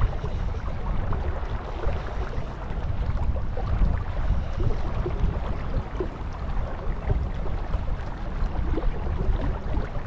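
Wind rumbling on the microphone, over the wash of choppy river water.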